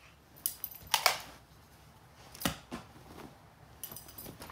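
A cat pouncing and scrambling on a bed after a string toy: scattered thumps, scuffs and rustling of the bedding. The loudest rustle is about a second in, a sharp thump comes about two and a half seconds in, and a few lighter taps follow near the end.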